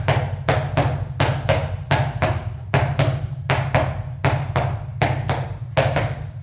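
Two handballs bounced alternately with both hands on a hard hall floor: a steady run of ball bounces, about three a second, the two balls striking the floor in turn.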